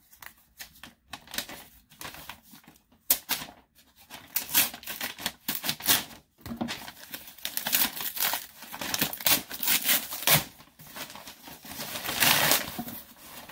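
A Priority Mail package being opened by hand: irregular tearing and crinkling of the packaging, in a run of sharp rips and rustles, with a longer stretch of rustling near the end.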